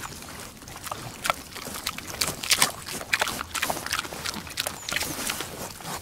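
A pig eating, chewing with irregular wet smacking and crunching, busiest and loudest a couple of seconds in.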